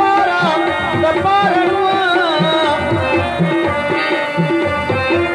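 Live Pashto folk music: a tabla keeps a steady beat with a deep stroke about once a second, under a melody line that bends and glides in pitch.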